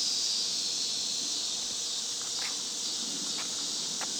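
Steady high-pitched insect chorus droning in the background, with a few faint clicks in the second half.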